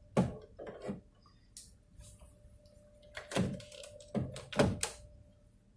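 Handling noise from setting up to test the PLC's relays with an analog multimeter: a series of dull knocks and thumps, a pair about a second in and three more past the middle, over a faint steady high hum.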